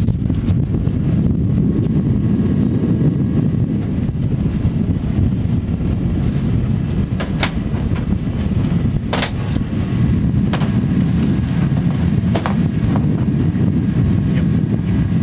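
A steady, loud low rumble, with a few sharp knocks in the second half as cargo bags and boxes are handled.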